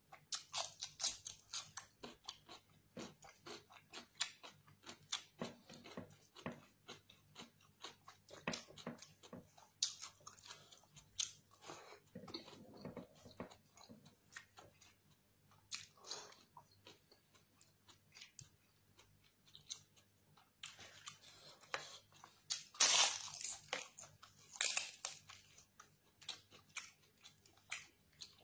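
Close-up eating sounds: a man chewing and biting crunchy food such as cucumber and papadam, with many wet mouth clicks. Louder crunches come about three-quarters of the way through.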